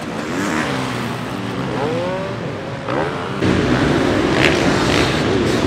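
Several motocross bike engines racing on the track, their pitch rising and falling as the riders rev up and shift. About three and a half seconds in, the sound jumps abruptly to a louder, denser engine noise.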